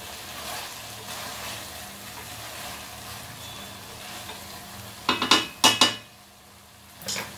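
Pumpkin curry sizzling in a steel pot while a spatula stirs it. About five seconds in, the spatula knocks and scrapes against the metal pot several times in quick succession, with one more knock near the end.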